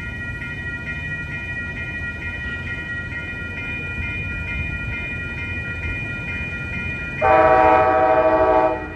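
Grade-crossing bell ringing steadily over the low rumble of an approaching train. Near the end, the lead Amtrak ALC-42 Charger locomotive sounds one steady horn chord of about a second and a half, the loudest sound here.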